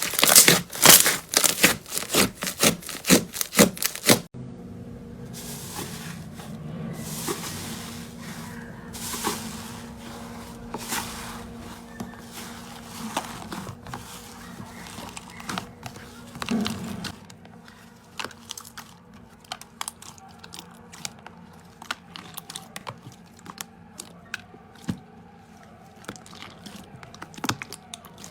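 Slime being handled by hand: a fast run of loud crackling clicks for about the first four seconds, then quieter handling sounds over a faint steady hum, with scattered small clicks and pops.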